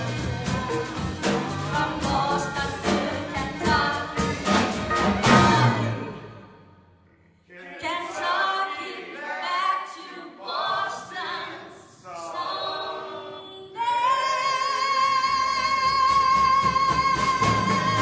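Live band with drum kit and horns playing loudly, then dying away about six seconds in. After a brief hush a solo voice sings short phrases and then holds one long high note, with drum hits coming back near the end.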